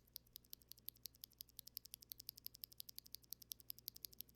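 Stock, unlubed Gateron Azure Dragon tactile mechanical keyboard switches pressed rapidly and repeatedly: an even run of about eight sharp clacks a second, pretty high-pitched.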